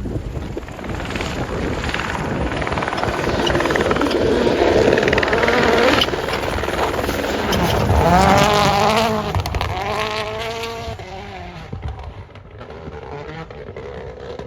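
A rally car approaching and passing at speed, its engine note building to high revs and stepping through several gear changes, then fading away as it goes off.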